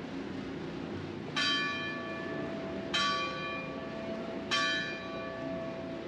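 Church tower bell struck three times, about a second and a half apart, each stroke ringing on and fading, with a low hum lingering between strokes over steady street noise.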